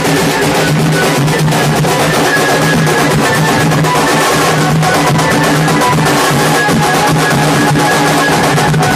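A street band of dhols, large barrel drums beaten with sticks, playing a loud, dense, unbroken beat, with a high melody line over it.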